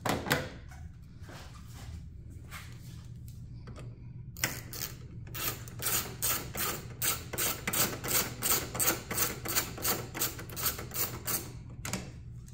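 A sharp knock right at the start, then from about four and a half seconds in a regular run of sharp clicks, about three a second, from a ratcheting hex driver being worked back and forth to back out a bodywork bolt on a motorcycle.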